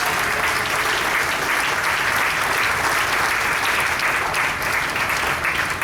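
Dinner audience applauding steadily, a dense sustained round of clapping that thins out near the end.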